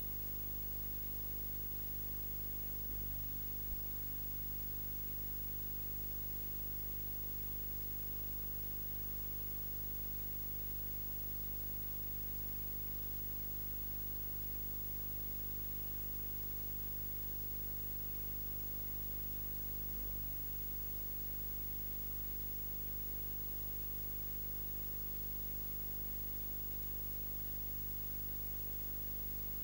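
Steady electrical hum with hiss and no live sound at all: the camcorder recorded with its microphone unplugged. A small click comes about four seconds in and a fainter one about twenty seconds in.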